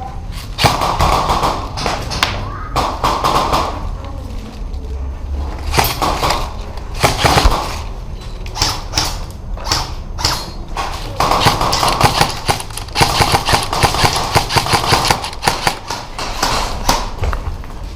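Airsoft guns firing: repeated sharp cracks and clacks through the whole stretch, with several longer runs of rapid shots lasting a second or more.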